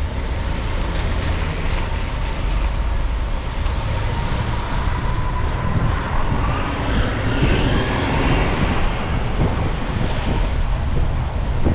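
A car driving in city traffic: steady tyre and engine road noise, with a faint whine that bends in pitch around the middle.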